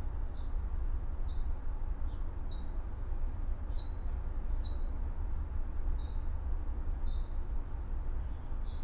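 A songbird giving short, repeated chirps, about one a second, over a steady low rumble of suburban morning ambience.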